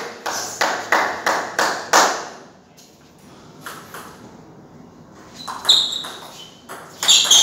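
Table tennis ball clicking off paddles and the table in a rally, about three sharp clicks a second for the first two seconds, then a lull. Near the end come a few more clicks with short high squeaks.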